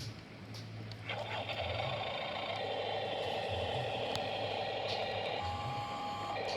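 Radio-controlled model excavator's electric motor whining steadily. It starts about a second in and shifts to a slightly different pitch near the end.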